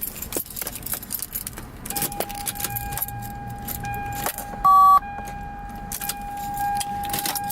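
Car keys jangling and clicking at the ignition as a car with a starting fault is tried and does not start. A steady electronic warning tone sounds from about two seconds in, and a short, loud beep comes about two thirds of the way through.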